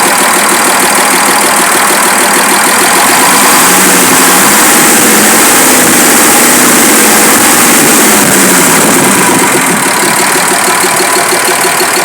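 Fiat 190 truck's diesel engine running, its speed rising a little about three seconds in and settling back down near the end.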